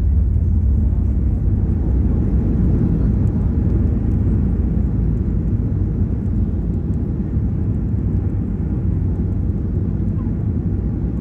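Boeing 737-8 MAX cabin noise heard from a window seat on the landing rollout: a loud, steady low rumble of engines and runway that slowly fades as the aircraft slows.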